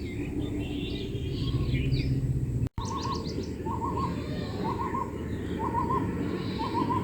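Birds calling: a bird repeats short two- or three-note calls about once a second, after higher chirps from other birds in the first couple of seconds.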